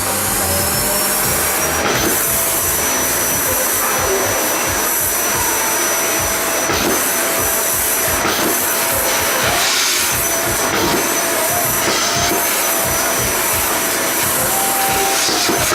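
Hoover vacuum cleaner switched on, its motor whine rising as it spins up in the first second or so, then running steadily with a constant high whine over the rushing air noise.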